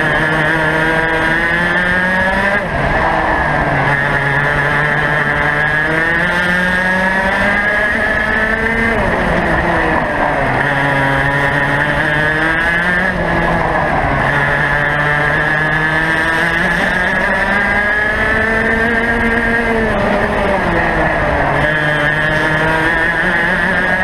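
Racing kart's two-stroke engine at full race speed, recorded onboard. Its pitch climbs steadily along each straight and drops sharply under braking for a corner, four times.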